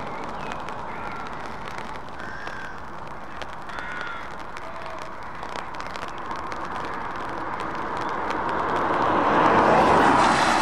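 A Scania S-series truck with cars behind it approaches on a wet road. Its engine and tyre hiss grow louder toward the end, peaking as it draws close, and a crow caws a few times in the first half.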